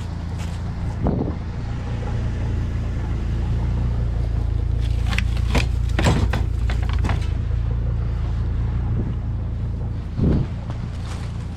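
Vehicle engine running with a steady low hum, with a few clicks and knocks in the middle and a short thump near the end.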